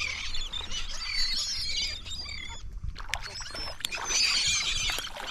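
A flock of seabirds working over a school of fish, many short high calls and squawks overlapping, busiest at the start and again about four seconds in, with a brief lull and a few sharp clicks around three seconds in. A low steady rumble runs underneath.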